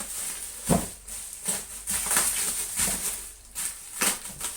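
Bubble wrap being pulled and unwrapped by hand: crinkling, rustling plastic with several sharp crackles.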